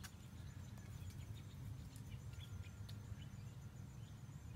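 Quiet outdoor ambience: a steady low rumble with faint, scattered bird chirps, and a thin steady high tone that comes in about halfway.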